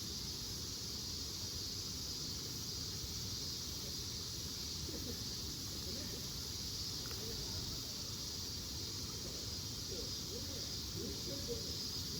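Steady chorus of summer insects, an even high-pitched buzz that does not change, over a low outdoor rumble.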